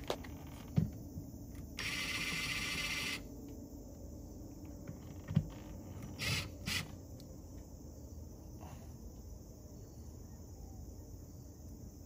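Ryobi cordless drill driving a screw into an RV door latch plate: one steady run of about a second and a half, then two short bursts a few seconds later, with a few light knocks.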